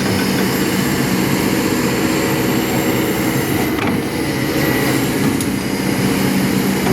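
Kobelco SK200 hydraulic excavator's diesel engine running at a steady speed, with a couple of faint clicks partway through.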